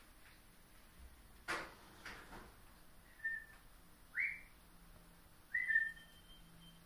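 A person whistling three short notes, the middle one rising, to make a hidden whistle-activated gadget answer. A single knock about a second and a half in.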